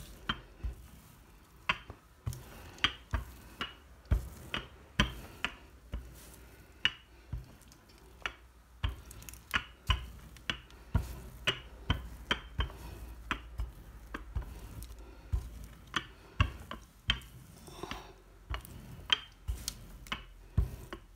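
Wooden rolling pin rolled back and forth over a sheet of warm sesame brittle on parchment paper, giving sharp irregular clicks and light knocks about one or two a second.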